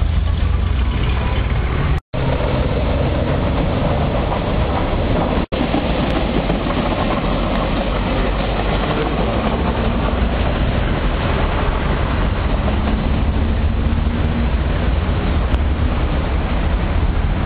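Electric commuter train approaching along the tracks below and passing underneath, a steady rumble mixed with road traffic. The sound cuts out completely for a moment about two seconds in and again about five and a half seconds in.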